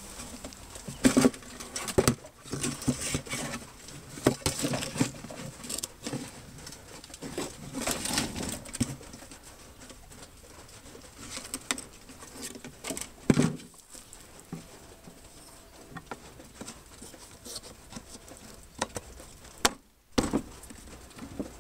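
Rain pattering, with irregular knocks, clicks and rustles from a hand moving through rusted metal parts and wiring.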